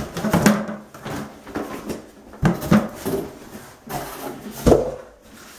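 Cardboard rustling and scraping, with several sharp knocks, as a boxed aquarium filter is pulled out of a cardboard shipping carton and handled.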